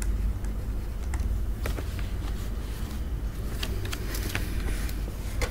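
Steady low hum with faint scattered clicks and taps from a stylus writing on a tablet screen.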